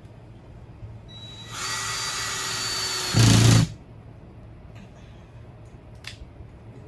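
Power drill driving a screw into drywall: a steady whine for about a second and a half, then a louder, lower burst for half a second that stops suddenly. A faint click follows a couple of seconds later.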